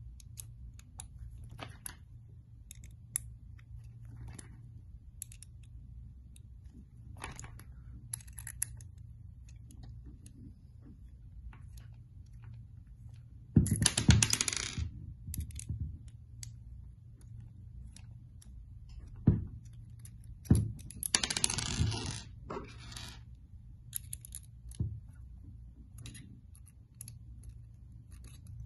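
Small metallic clicks and scrapes as an Allen key works out the small screws from the seal ring of a metal Drylink coupling, with two louder stretches of clattering and knocking about halfway through and again a few seconds later, over a steady low hum.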